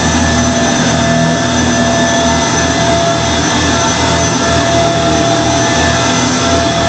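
2006 Kenmore Progressive Intelliclean vacuum cleaner running steadily while vacuuming, a steady motor whine over rushing airflow with a low rumble that rises and falls.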